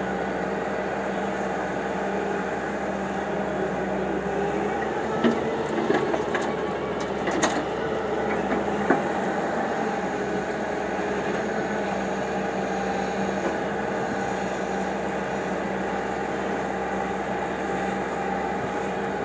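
Diesel engine of a Hyundai crawler excavator running at a steady pitch. A few sharp metallic clanks come between about five and nine seconds in.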